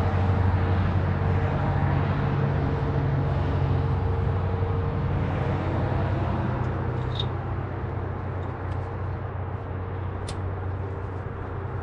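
A vehicle engine running steadily with a low hum that slowly gets quieter, with a couple of faint clicks in the second half.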